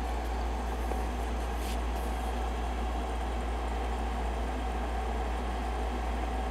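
Steady low hum with a soft hiss: room tone, with no distinct events.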